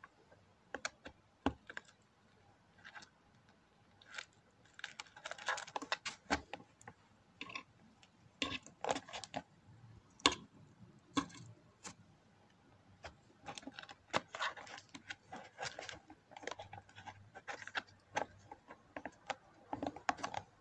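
Irregular light clicks and taps, some in quick clusters, with a faint rustle between them.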